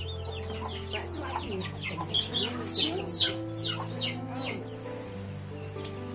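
Chickens clucking and giving quick, high, falling cheeps that die away after about four seconds. Soft background music with held notes plays underneath.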